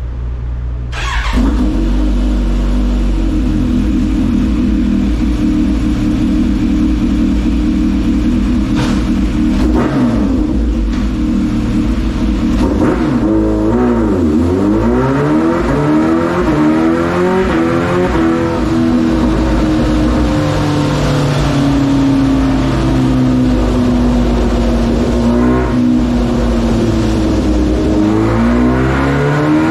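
Supercharged inline-four engine of a 2023 Kawasaki Ninja H2 with a Vandemon full titanium exhaust, running on a chassis dyno. The revs jump up about a second in and hold steady, then from about thirteen seconds the engine speed dips and climbs several times as the bike is run up on the roller.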